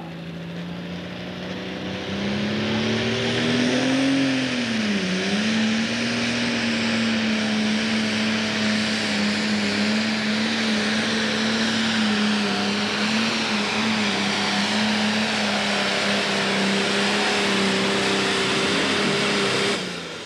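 Pro Stock pulling tractor's diesel engine at full throttle, pulling the weight-transfer sled. The engine note rises about two seconds in, sags briefly around five seconds, then holds steady with a high-pitched hiss over it, and drops off just before the end as the pull finishes.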